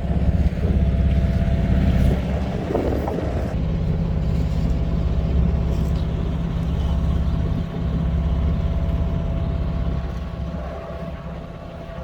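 A boat's engine running steadily, a low hum with a steady higher tone over it, getting somewhat quieter near the end.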